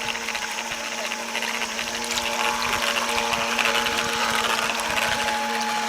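Graupner Speed 700 electric motor of a wooden RC model boat running with a steady whine, over a hiss of water from its wake; it gets louder about two seconds in.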